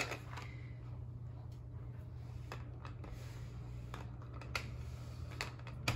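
A plastic rolling pin rolling salt dough flat on a silicone pastry mat over a glass tabletop. It makes scattered light clicks and taps, about one a second, as the pin and its handles shift.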